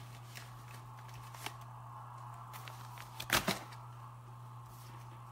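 Plastic glitter pouches being handled in a cardboard box, with a short crackle about three seconds in and a few faint clicks, over a steady low hum.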